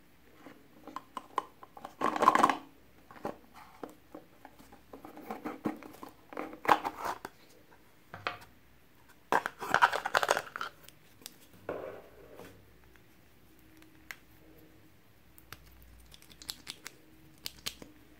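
A small cardboard gift box being handled and opened: the lid scraping and the box rustling in several short bursts, with light clicks and taps between them and a few faint ticks near the end.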